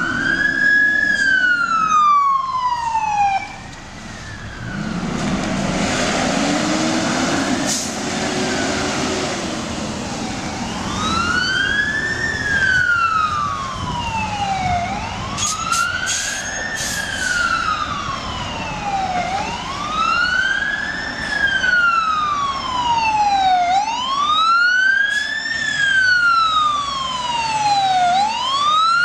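Fire engine siren in wail mode, rising and falling about every four to five seconds. The wail drops away for several seconds after the first cycle, then comes back about eleven seconds in and carries on.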